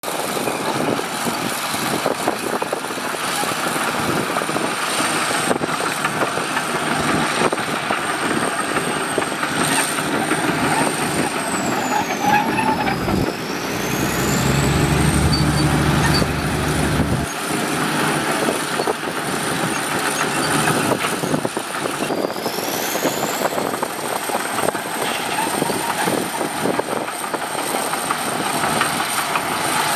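Heavy earthmoving machinery working: the diesel engines of a bulldozer and dump trucks running under load with a steady mechanical clatter. A deeper, heavier engine note swells from about 13 to 17 seconds in. A thin high whine runs throughout and twice dips in pitch, then climbs back.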